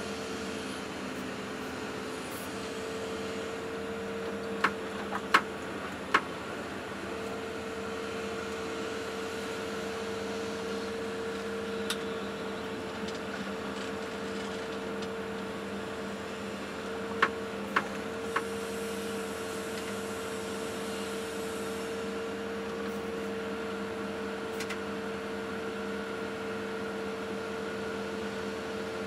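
Excavator engine and hydraulics running steadily, heard from inside the closed cab, with a steady tone over the engine noise. Two sets of three short, sharp clicks come about five seconds in and again at about eighteen seconds.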